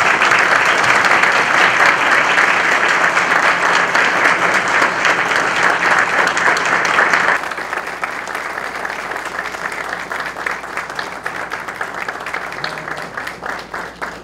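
Audience applauding: dense clapping that drops suddenly in loudness about halfway through, then thins into scattered claps dying away near the end.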